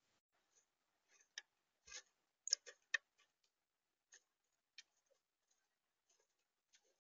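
Irregular clicks and light rattles of a black-capped chickadee at a plastic tray feeder, picking through sunflower seeds. The loudest clicks come about two and a half to three seconds in.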